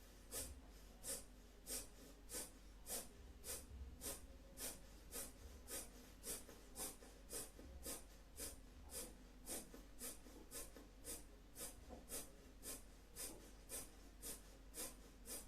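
Kapalabhati breathing: a steady run of short, forceful exhalations through the nose, each pushed out by a sharp abdominal snap. There are about 25 in a row, a little under two a second, with the passive inhalations between them barely heard.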